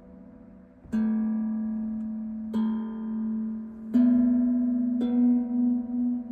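Steel tongue drum struck four times, a note about every second or so, each ringing on and overlapping the last. After the final strike the low tone pulses with a steady wavering beat.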